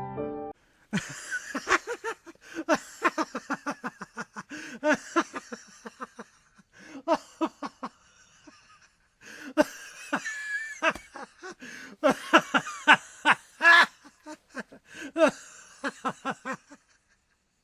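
Laughter: repeated bursts of chuckling and giggling, pausing briefly about halfway through.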